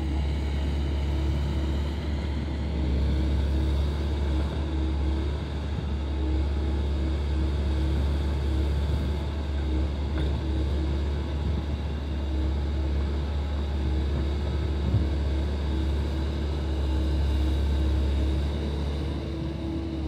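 Diesel engine of a Komatsu tracked excavator running steadily under load as the boom and bucket work, a low hum with a faint tone that comes and goes as the hydraulics move.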